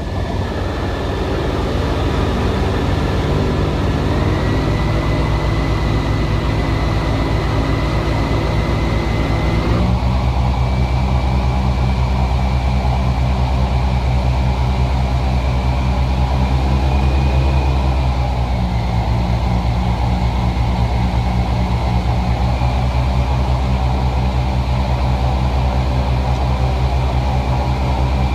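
Boat motor running steadily under way, its note shifting twice, about four and ten seconds in, and growing deeper and louder after the second change.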